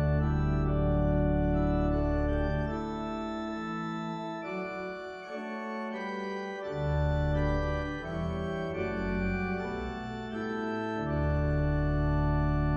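Church organ playing slow, sustained chords, with deep bass notes that come in and drop out, as the introduction to a hymn.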